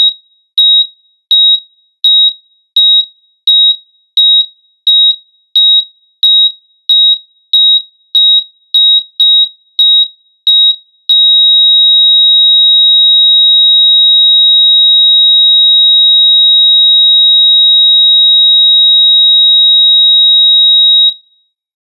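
Heart monitor sound effect: short high-pitched beeps at a steady pitch, speeding up from under 1.5 to about 2 a second. About halfway through they merge into one unbroken flatline tone that lasts about ten seconds and then cuts off. The flatline is the signal that no heartbeat is being detected.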